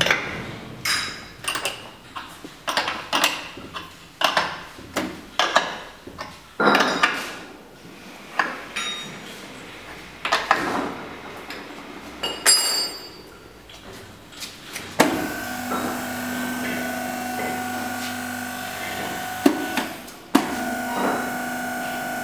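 Sharp metallic knocks and clanks as the pipe clamps of a hydraulic butt fusion welding machine are tightened with a wrench. About two-thirds of the way in, the hydraulic power unit's electric pump starts a steady hum, which briefly stops and restarts near the end.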